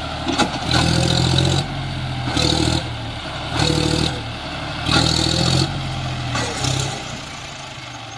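John Deere tractor's diesel engine revved hard in about five short surges under load, as it tries to drive its loaded trolley out of soft sand with the rear wheels dug in. The engine sound drops away a second before the end.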